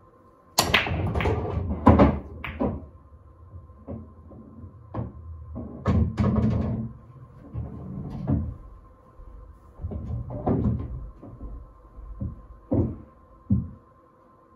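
Nine-ball break on a Diamond pool table: a sharp crack as the cue ball drives into the rack about half a second in, then a rapid clatter of balls clacking together and off the cushions. Scattered single knocks follow and thin out as the balls come to rest.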